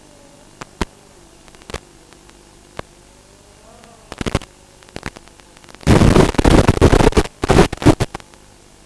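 A few sharp isolated clicks, then loud crackling bursts of static-like noise for about two seconds, starting about six seconds in.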